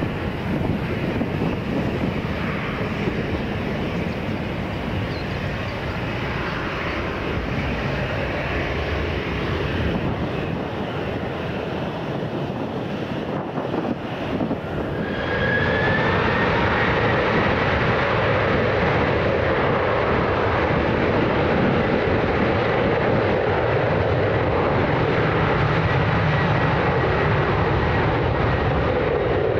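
Jet airliner engine noise. First comes a steady rush from a United Boeing 787 arriving. About halfway through, the sound changes abruptly to a louder United Boeing 737 on its takeoff, with a high engine whine that rises briefly and then holds steady.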